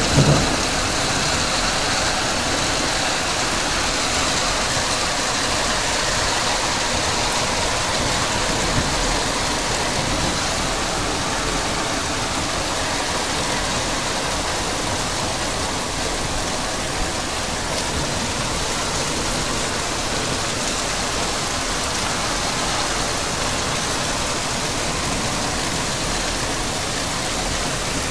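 Heavy rain pouring down onto corrugated metal roofs: a dense, steady hiss.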